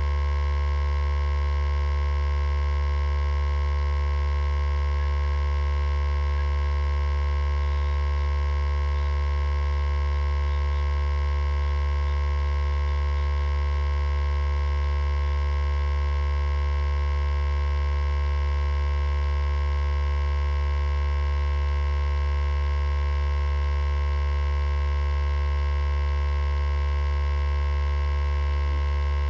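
Steady electrical hum: a strong low drone with many fixed higher tones above it, unchanging throughout.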